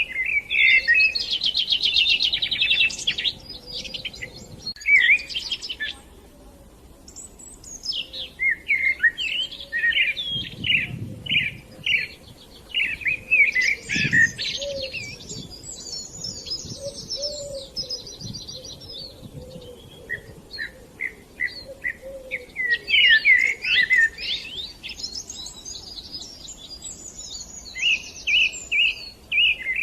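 Songbirds chirping and twittering in rapid trilled phrases, several voices overlapping, with short lulls about six seconds in and again a few seconds before the end.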